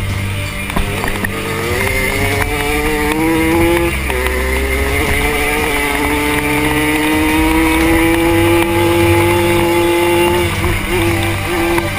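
Hercules GT moped's two-stroke engine running hard, its pitch climbing slowly for several seconds as it gains speed, then dropping and wavering near the end as the throttle comes off. Heard from a helmet camera.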